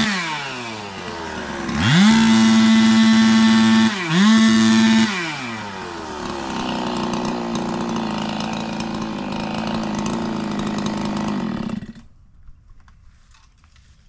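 Ported big-bore Husqvarna 372XP two-stroke chainsaw revving with no cutting. It drops off full throttle, revs back up to full about two seconds in and holds there for about three seconds with one brief dip. It then falls to idle and cuts off suddenly near the end.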